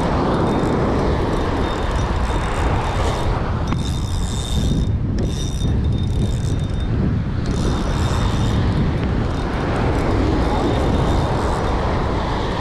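Wind buffeting the microphone over surf washing up the beach: a loud, steady rush.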